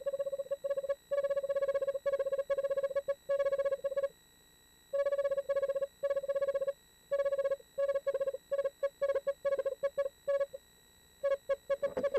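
Eastern screech owl giving its trill call, a steady-pitched run of rapid notes. It comes in bouts about a second long at first, which break into shorter and quicker bursts, faster and more insistent towards the end.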